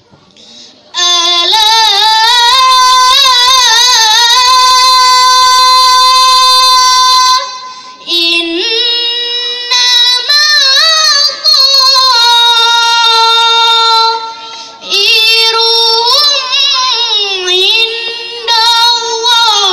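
A girl's voice performing tilawah, the melodic recitation of the Quran: long held phrases with wavering, ornamented pitch, starting about a second in, with short breaks for breath between phrases.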